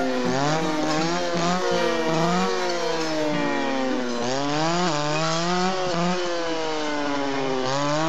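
Two-stroke clearing saw (brush saw) revving up and down again and again as it cuts through small trees, its engine pitch rising and falling about once a second.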